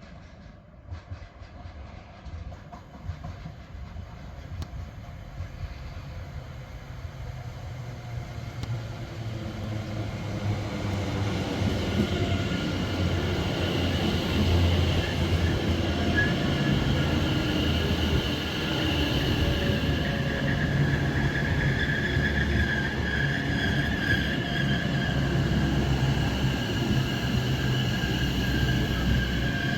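Multiple-unit passenger train approaching through the station, growing steadily louder over about twelve seconds, then running past loud and steady with a low rumble and a steady high-pitched tone.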